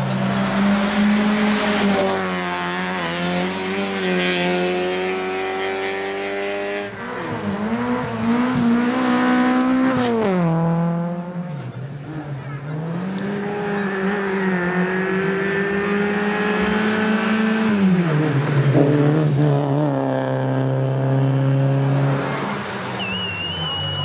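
Rally car engines revving hard and changing gear as the cars pass one after another, the pitch climbing, dropping back and climbing again several times. A brief high squeal sounds near the end.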